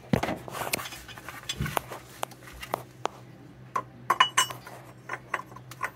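Steel pulley holder tool clinking and clattering against the crankshaft pulley and its bolt as it is fitted by hand. Irregular sharp metallic clinks, with a quick cluster and a brief ring about four seconds in.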